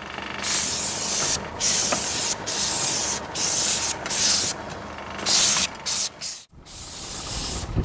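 High-pressure spray gun misting clear sealant onto concrete roof tiles: a hiss in short bursts, about eight of them, each under a second long, as the trigger is pulled and released.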